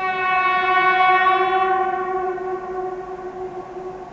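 Air horn of an approaching 2TE116 diesel locomotive sounding one long, steady single-note blast that starts suddenly and fades after about two seconds.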